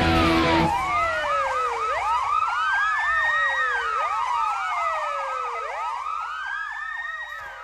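Several emergency vehicle sirens sounding together: a slow wail rising and falling about every two seconds over a fast warble of about five cycles a second, fading toward the end.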